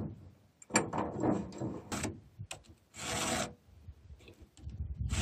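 A round chainsaw file in a filing guide rasping across the cutters of a Stihl chainsaw's chain held in a bench vise, in two strokes of about half a second each, about three seconds in and near the end. Before them come a few short knocks and scrapes of metal.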